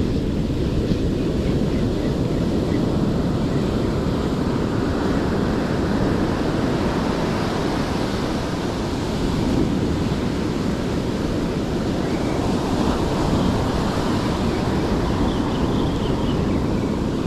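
Ocean surf washing on a beach, mixed with wind rushing over the microphone: a steady, even rush with no distinct events.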